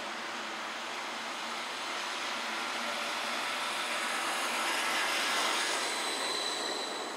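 CAF Urbos 3 tram running into a platform stop: a steady rush of wheels and running gear that swells as it draws alongside, with a thin high whine coming in near the end as it slows.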